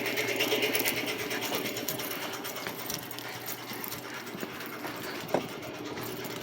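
Shop air compressor running with a fast, steady mechanical chatter. There is a single short knock about five seconds in.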